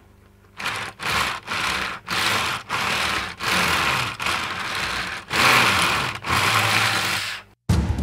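Plastic brick-built tracks of a Panlos T-28 tank model clattering over their road wheels as the model is pushed back and forth, in about eight rattling strokes with short pauses between them. The rattle cuts off suddenly near the end.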